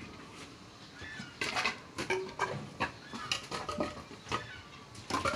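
Wooden planks clattering as they are unloaded by hand and tossed onto a pile: a run of sharp, irregular knocks, several a second, starting about a second and a half in.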